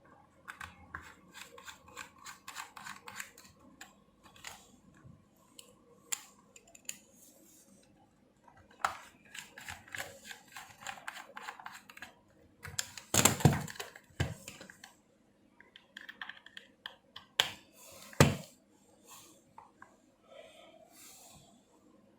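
Clicks, taps and scrapes of a plastic game controller and small tools being handled on a workbench, with two louder knocks about 13 and 18 seconds in.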